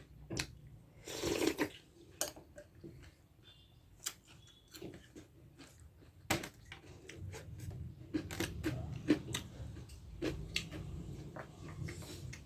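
A person eating close to the microphone: chewing, with many short sharp clicks through it and a brief noisy burst about a second in.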